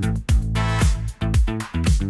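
Upbeat disco-funk music with a steady, driving beat, punchy kick drums and a bass line.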